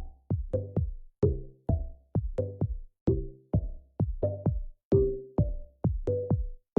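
Electronic background music: a drum-machine beat of sharp, bass-heavy hits, two to three a second, each cut short.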